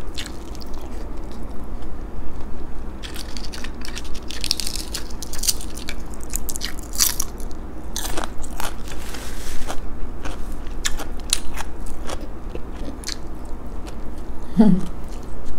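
Close-up chewing and crunching of food, with many small clicks and crackles from the mouth. A short hum from the eater about 14.7 s in.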